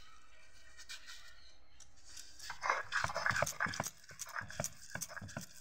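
Stone roller (nora) grinding boiled banana flower on a flat grinding stone (shil): faint wet squishing at first, then from about halfway a quick run of rhythmic scraping, crushing strokes.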